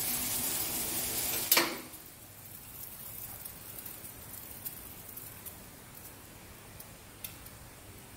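Gas stove burner hissing under a pot of boiling water. A click about one and a half seconds in as the flame is turned off, and the hiss stops. Faint ticks and low bubbling after.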